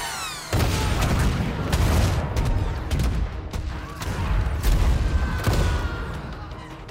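Film battle sound effects: a quick falling whistle, then a sudden run of heavy explosions mixed with gunfire beginning about half a second in, with several sharp blasts through the middle before it dies down near the end.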